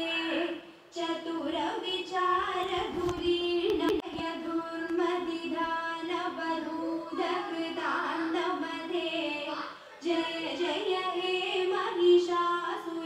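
A female voice singing a devotional song in continuous phrases, with brief pauses about a second in and near ten seconds.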